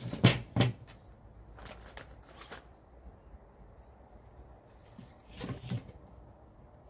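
Birch branches being handled and knocked against a glass tabletop: a few sharp knocks right at the start and another cluster about five seconds in, with faint rustles and ticks between.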